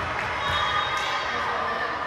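Mixed voices of spectators and players in a sports hall, at a steady level, with no sharp ball hits.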